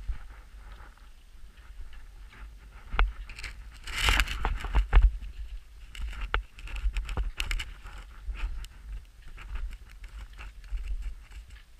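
Footsteps crunching and scuffing irregularly through snow, with a low wind rumble on the microphone. A louder flurry of crunching comes about four to five seconds in.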